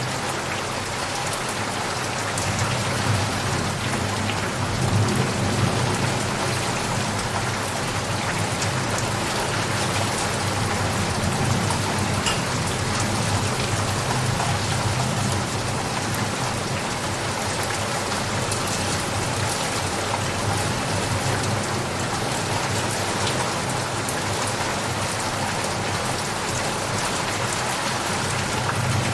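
Steady rain falling, with a low rumble underneath that swells a few seconds in.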